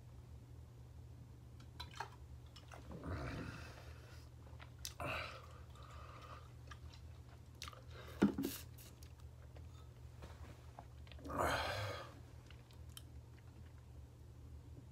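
Close mouth sounds of a man swallowing milk and chewing, with a few louder breathy noises and one sharp knock about eight seconds in.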